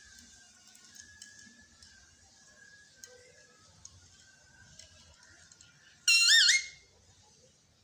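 A pet parrot giving one loud, shrill call about six seconds in, its pitch wavering up and down for about half a second.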